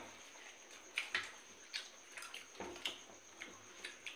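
Eating sounds from people eating roti by hand: irregular wet chewing and lip-smacking clicks, about two a second.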